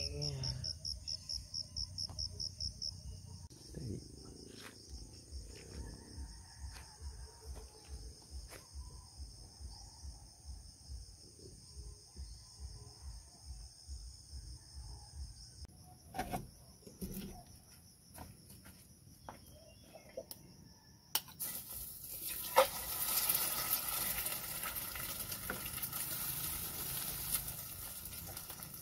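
Insects trilling: steady high-pitched calls, pulsing quickly at first. About three-quarters of the way through they give way to a louder, even hiss.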